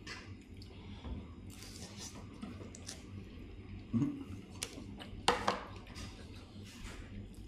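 Clinks and clatters of forks and plates on a dining table during a meal, with two sharper knocks of a plate or dish about five seconds in and a brief vocal sound a little before them.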